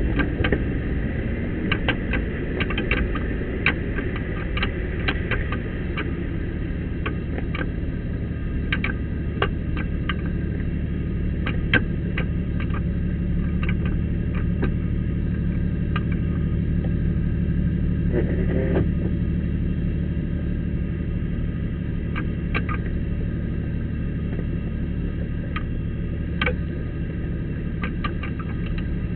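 Off-road vehicle engine running steadily at low revs while crawling over a rocky trail, with frequent sharp clicks and knocks scattered throughout.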